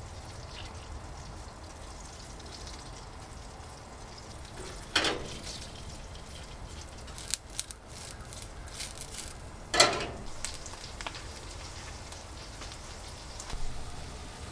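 Garlic scapes frying in butter in a pan: a steady sizzle, with two brief louder surges about five and ten seconds in and a few light clicks between them.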